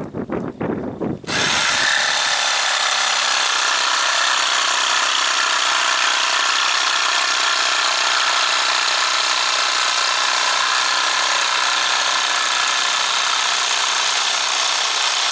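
Jigsaw fitted with a metal-cutting blade, sawing steadily through the platform material for a long continuous cut. A few knocks of handling come first; the saw starts about a second in.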